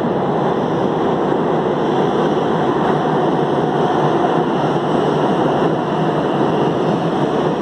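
Subway train running through the underground station: a loud, steady rumble that neither builds nor fades.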